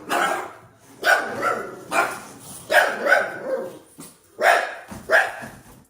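A dog barking repeatedly, about once a second, with a few barks coming in quick pairs.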